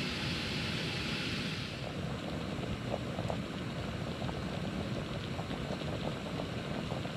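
Backpacking stove burning steadily under a pot of water being brought to the boil, a hiss on top dying away about two seconds in, then light ticks and pops as the water heats.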